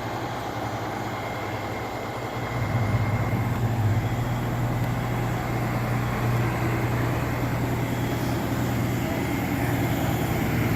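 A vehicle engine running steadily as a low hum, which grows louder about two and a half seconds in and then holds.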